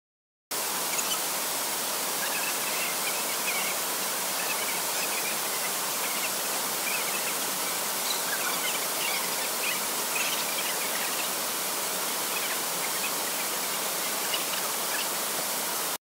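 A large waterfall in heavy flow, rushing steadily; the sound starts abruptly about half a second in.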